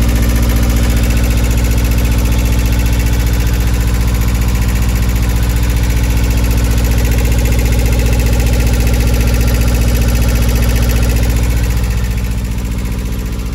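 Inboard engine of a Vancouver 28 sailing yacht running steadily at idle with an even, rhythmic pulse, heard close up in its engine compartment, a little quieter near the end.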